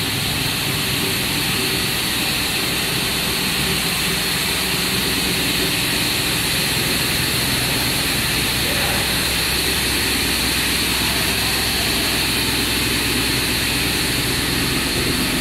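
Triple-twist machine for twisting LAN cable pairs running at speed: a steady mechanical hum with a high, even whir over it.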